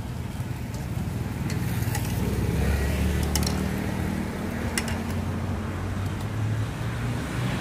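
A motor vehicle's engine running low, swelling for a couple of seconds in the middle and then easing, with a few light clinks of a metal ladle against a stainless steel mixing bowl.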